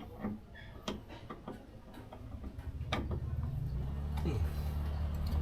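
Scattered light clicks and taps, one sharper click about three seconds in, then a low steady hum that sets in and grows louder.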